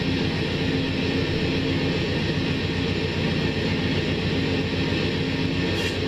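Amtrak GE Genesis diesel locomotive standing at the station with its engine running steadily, a fast even low throb.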